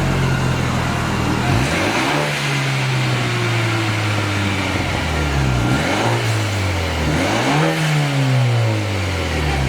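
BMW F30's engine revved through a newly fitted aftermarket exhaust: three throttle blips, about two, six and seven and a half seconds in, each climbing quickly and falling slowly back toward idle.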